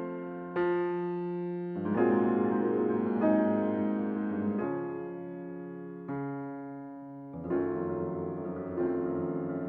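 Background piano music: slow, gentle chords struck about once a second or two, each ringing and fading before the next.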